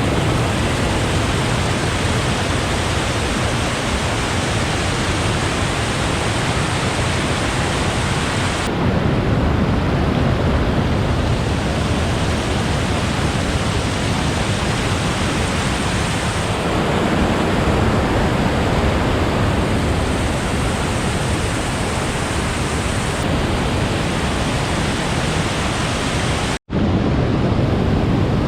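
Willow Falls on the Willow River: the steady, loud rush of falling water, broken by a split-second dropout near the end.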